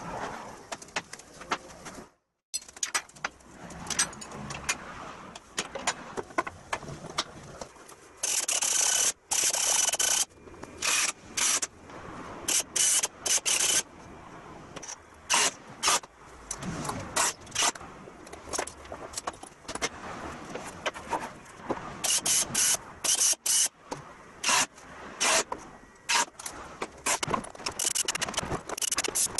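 A handheld power tool running in repeated short bursts, mostly a second or less, with a longer run of about two seconds, while hardwood floor planks for a truck's flatbed are fitted. Knocks and scrapes of the boards being handled come in between.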